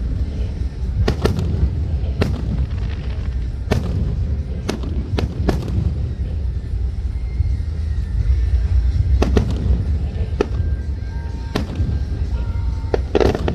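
Aerial fireworks bursting, about a dozen sharp bangs at irregular intervals with a lull in the middle, over a continuous low rumble.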